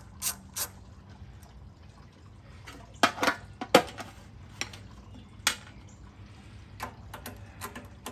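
A socket ratchet clicks a few more times as a carburetor mounting nut is backed off. Then come scattered sharp clinks and taps of metal tools and parts being handled, loudest around three to four seconds in.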